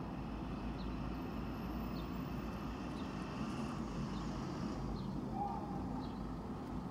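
Steady low rumble of city street traffic and idling vehicles, with faint high chirps about once a second.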